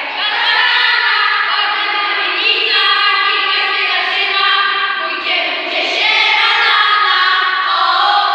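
A small group of children singing a song together in unison, holding long notes.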